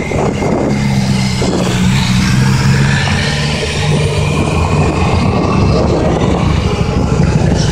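Motorcycles riding past one after another at low speed, their engines running in a steady low note.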